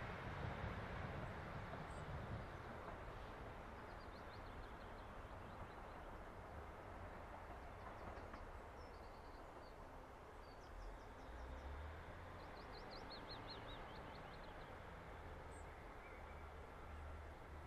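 Class 156 diesel multiple unit standing at the platform with its engine idling, a low steady rumble that eases off a little at the start. Over it a small bird chirps in several short rapid trills.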